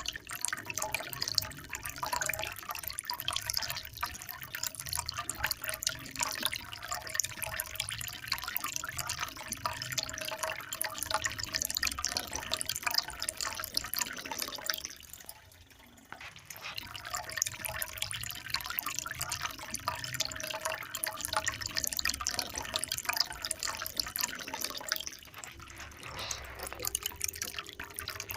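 Water trickling and splashing in a steady stream of small drips and splashes. About halfway through it nearly drops out for about a second, then comes back.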